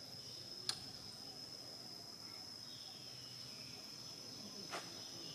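Insects droning steadily at one high pitch, with two short clicks, one about a second in and one near the end.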